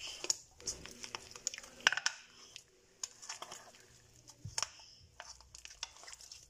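Homemade fluffy slime being squeezed and kneaded by hand: irregular sticky crackles and small pops, in clusters with short quiet gaps.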